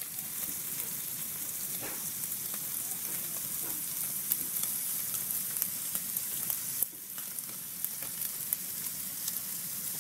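Sizzling sound effect: a steady hiss with scattered crackles, like food frying in hot oil, dipping briefly about seven seconds in.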